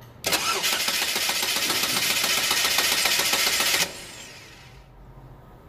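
A 2010 Chevy Equinox's starter motor cranking the engine for about three and a half seconds, then stopping, with battery voltage fed directly to the starter circuit at the relay socket. The cranking shows that the starter motor and its wire and fuse are good, so the no-start lies in a starter relay that clicks but does not switch.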